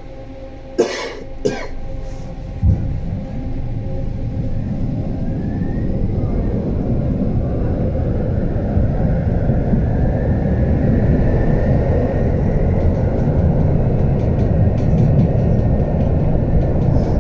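HF 11 AC tram moving off from a standstill: a steady hum while stopped, two short sharp noises about a second in, a thump as it starts, then the low rumble of wheels on the rails growing steadily louder with a faint rising motor whine as it gathers speed.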